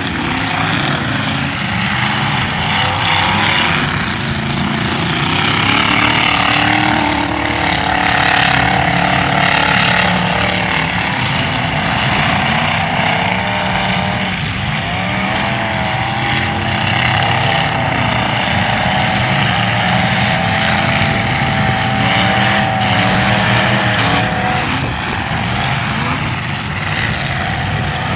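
Demolition derby car engines revving hard, their pitch rising and falling throughout.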